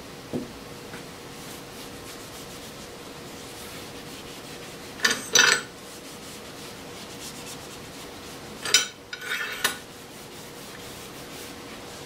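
A cloth rag rubbing lubricant along a steel lathe bar, in short scratchy wiping strokes: a pair about five seconds in and a few more around nine seconds, over a faint steady hiss.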